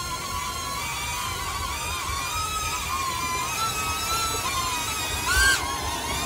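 Small DJI Neo quadcopter hovering close by, its propellers making a high whine that wavers in pitch as the motors correct, with a low rumble of prop wash on the microphone. About five and a half seconds in the whine sweeps sharply up and is briefly louder as the motors spin up.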